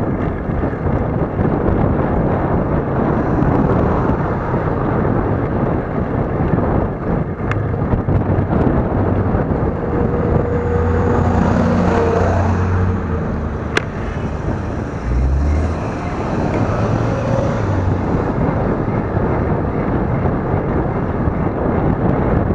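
Steady wind buffeting on the microphone of a moving camera. About halfway through, a car engine is heard close by, and there is one sharp click near the middle.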